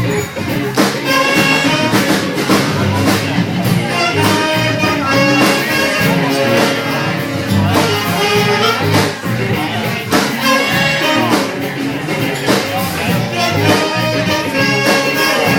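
Live band playing a jazz-style tune, with sustained melody notes over a steady beat of drum hits.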